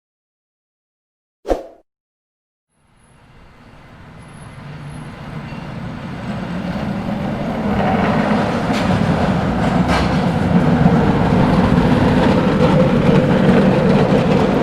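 A single sharp knock, then a cable car getting under way: a rumbling running noise that swells over several seconds and then holds steady, with a couple of faint clicks.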